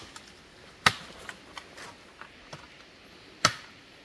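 Sharp knocks: two loud strikes about two and a half seconds apart, with a few lighter taps and clicks between them.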